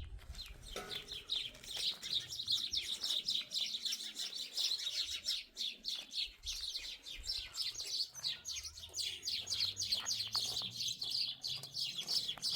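Small birds chirping continuously: a dense, rapid run of short, high chirps.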